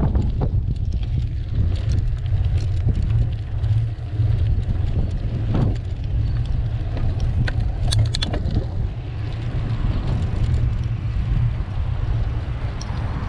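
Steady low rumble of a moving bicycle: wind buffeting the microphone and tyre noise on the road. A few sharp clicks come about eight seconds in.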